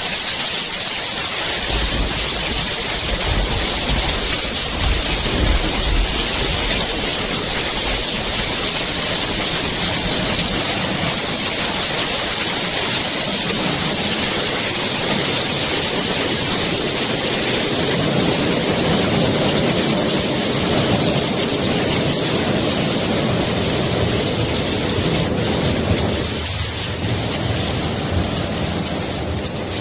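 Steady rain, an even hiss throughout. A deep rumble of thunder comes in about two seconds in and lasts several seconds.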